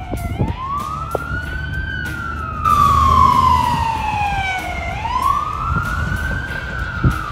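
Fire engine siren wailing in a slow rise-and-fall: up to a high pitch, a long fall, then up again, over a low rumble. It gets louder and brighter about three seconds in.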